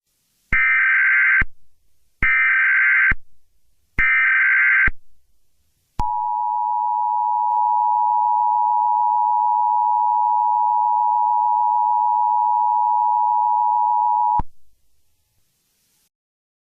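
Emergency Alert System tones: three short bursts of the SAME digital header, each a harsh data screech under a second long, then the two-tone EAS attention signal, a steady dual-tone buzz held for about eight seconds before it cuts off abruptly.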